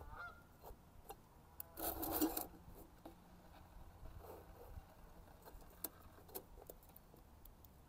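Small metal scrapes and clicks from a metal cup being handled on the top of a small wood-burning camp stove, with one longer, louder scrape about two seconds in.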